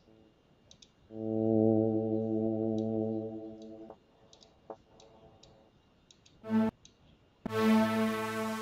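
ZynAddSubFX synthesizer presets previewed from the LMMS preset browser, each a single held note: the first sounds from about a second in and fades out around four seconds, and after a short blip a second, brighter note starts near the end. Soft mouse clicks fall in the gaps.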